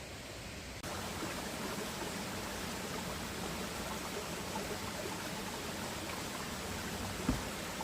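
Stream water running steadily, getting brighter and a little louder about a second in, with one short low thump near the end.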